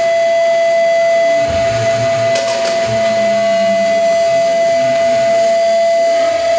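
Audio feedback between microphones and a PA system: one steady mid-pitched tone with a fainter higher tone above it, over a harsh noise haze. A brief burst of crackling comes about two and a half seconds in.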